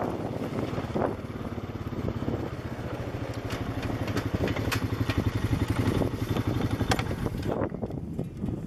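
Side-by-side utility vehicle's engine running steadily while driving on a gravel road, with sharp rattles and knocks from the machine bouncing over the rough surface, most of them in the middle of the stretch.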